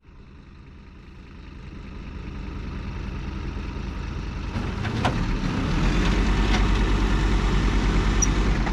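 Motor vehicle running with low engine and road rumble, growing louder over about five seconds and then holding steady with an even low throb. A couple of light clicks sound around the middle.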